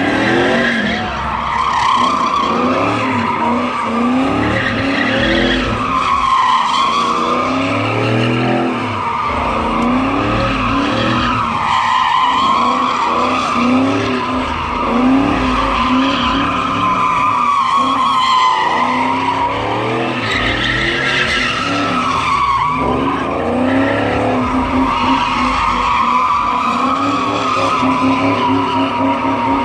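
Car tyres screeching continuously, the pitch wavering up and down, as a car spins donuts in the intersection, with the engine revving underneath.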